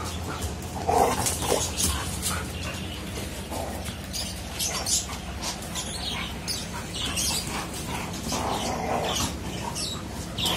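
A Saint Bernard and a smaller mixed-breed dog play-fighting, with scattered short whines and yips.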